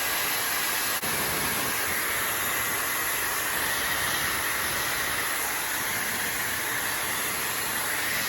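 Negative-ion hair dryer running steadily at full blow, a rush of air with a steady whine on top, in its reverse-wind mode that blows dust out of the intake filter. The sound dips briefly about a second in.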